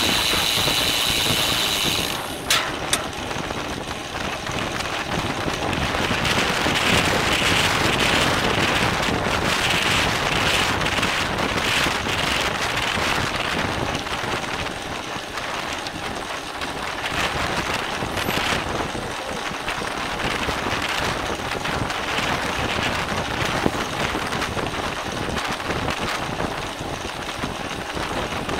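Wind rushing over a bike-mounted camera's microphone while racing at speed, mixed with tyre and road noise. Two sharp clicks come about two and a half seconds in.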